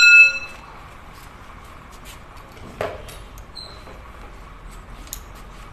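A steel tool clinks against the bare engine block right at the start and rings briefly with several clear tones, followed by a few light metallic clicks and knocks as a long torque wrench is handled on the block.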